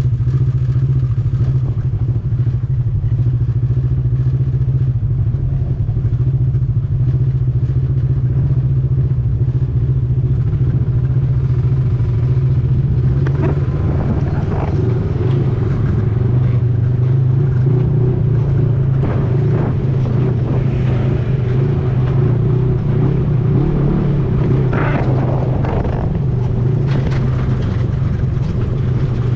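ATV engine running steadily under way, a loud low drone that holds even throughout, with short clattering knocks now and then in the second half.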